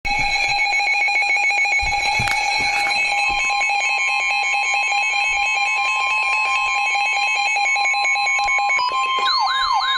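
Several electronic alarm tones sounding together: a steady tone with rapid pulsing beeps. A second, higher steady tone joins about three seconds in, and a wailing, siren-like sweep starts near the end.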